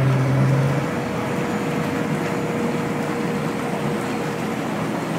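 Bestway Lay-Z-Spa Paris inflatable hot tub's bubble blower running with a steady rush like a shop vac, air churning through the water. A low hum drops away about a second in, and a faint steady whine runs beneath until near the end.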